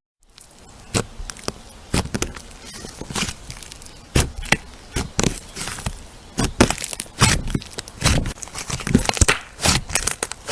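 Crunchy slime being squeezed and pressed by hand, giving irregular crackles and sharp pops, several a second, growing louder in the second half.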